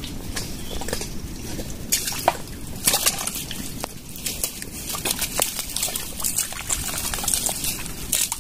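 Wet mangrove mud squelching and sloshing as hands dig into crab burrows, with irregular wet smacks and splashes.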